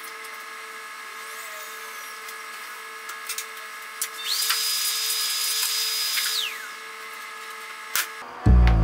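A power tool motor spins up with a high whine, runs steadily for about two seconds and winds down, over a steady workshop hum. A sharp knock comes near the end, followed at once by a sudden loud deep boom.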